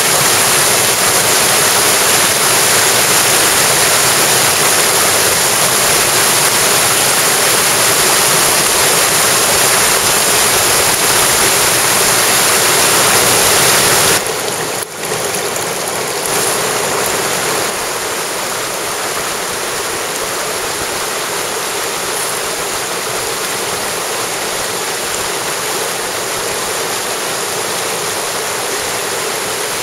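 Mountain stream water flowing, a steady rush; about halfway through it cuts suddenly to a somewhat quieter stretch of the same kind of water sound.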